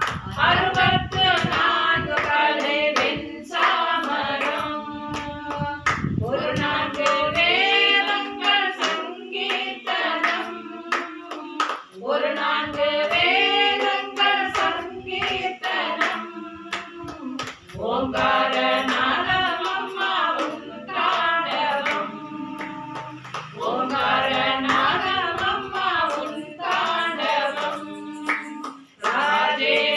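A group of women singing a Hindu devotional bhajan together in unison, keeping time with steady hand claps.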